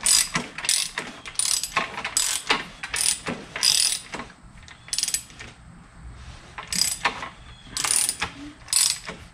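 Ratchet wrench clicking in repeated strokes as the crankshaft of a 2005 Suzuki GS500F engine is turned over by hand, rotating the engine to get oil flowing up to the cams after a shim change. The clicks come in short strings, with a lull about halfway through.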